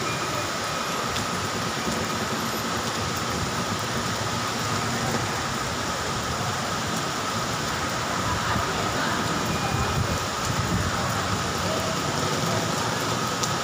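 Heavy rain falling steadily: an even, dense hiss of rain on surfaces.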